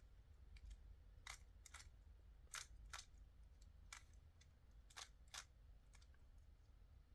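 Faint, irregular clicks of a 3x3 Rubik's cube's faces being turned by hand, about eight snaps spread over several seconds.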